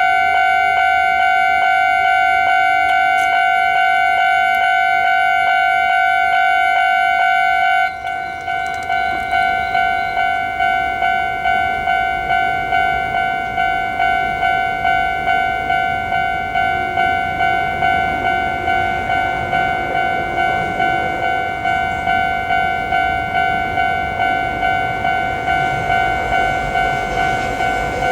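Japanese railroad level-crossing warning bell ringing its steady "kan-kan" ding, about two strikes a second. About eight seconds in the sound changes abruptly, and a train's rumble builds beneath the bell toward the end.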